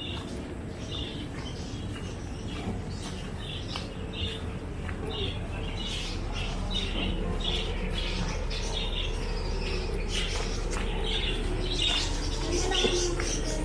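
Small birds chirping repeatedly in short high calls over a steady low background rumble.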